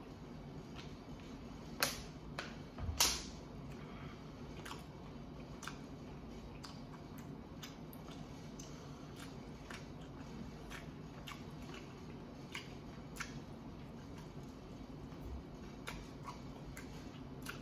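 Eating sounds from a man working through baked chicken legs by hand: small wet clicks and smacks of chewing and of meat pulled from the bone, with two louder knocks about two and three seconds in. A steady low hum runs underneath.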